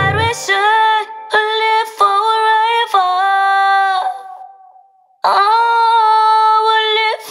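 Unaccompanied singing voice holding long wordless notes once the bass and backing music cut off just after the start. The voice fades away about four and a half seconds in and comes back strongly a moment later.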